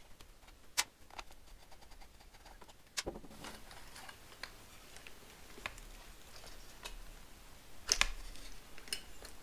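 Scattered clicks and light knocks of hand work on a motorcycle headlight: a screwdriver at the rim's retaining screws, then the chrome headlight unit pulled loose from its bucket and its wiring handled. A few sharp metallic clicks stand out, the loudest about eight seconds in.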